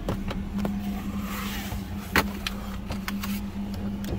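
A car idling with a steady low hum, heard from inside the cabin, with scattered clicks and one sharp knock about two seconds in.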